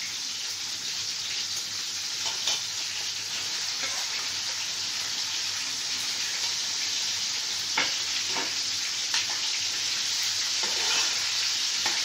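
Meat and freshly added liver sizzling as they sauté in a metal cooking pot, a steady frying hiss. A metal spoon stirs through it, knocking and scraping against the pot a few times.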